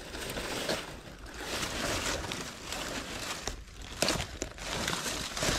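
Rustling and crackling of dry leaves and brush, with several sharp snaps scattered through it.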